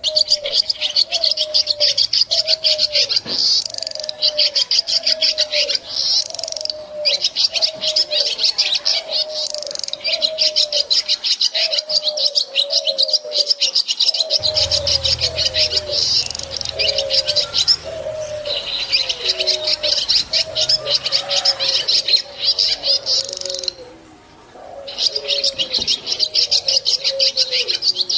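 Swiftlets twittering: dense, very rapid high chirps in long bouts, broken by short pauses every few seconds. Underneath, a lower short falling note repeats steadily, more than once a second.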